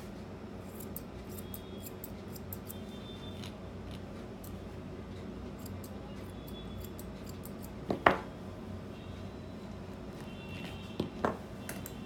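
Grooming shears snipping through a Maltese's leg coat in quick, light cuts, with two louder knocks later on.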